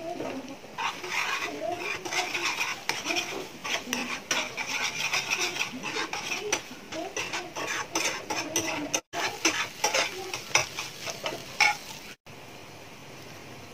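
A metal spoon scraping and clicking against a non-stick frying pan as cornflour-coated chicken is stirred in sizzling oil. The sound cuts out briefly twice, and near the end gives way to a steady gas-burner hiss.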